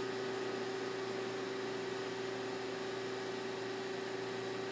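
Acra CNC lathe running under power with its hydraulics on while it homes its second axis: a steady machine hum, one constant mid-pitched tone over an even hiss, with no change in speed or pitch.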